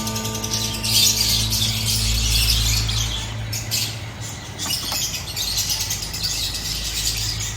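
Pet eclectus parrot making harsh, scratchy squawks and chatter in short bouts.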